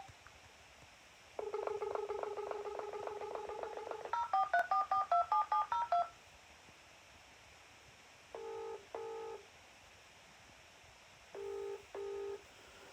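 Uniden XDECT 8355 cordless phone dialling out. There is a steady dial tone for about three seconds, then about ten quick keypad tones as the number is entered, then the ringing tone twice, each ring a double pulse.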